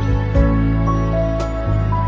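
Background music: slow, gentle new-age instrumental with sustained bass notes under a soft melody that changes note every second or so.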